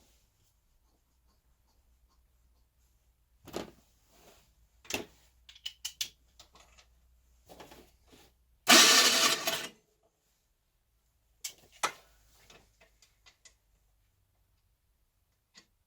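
Scattered knocks and clicks of things being handled, with one loud rushing burst lasting about a second near the middle.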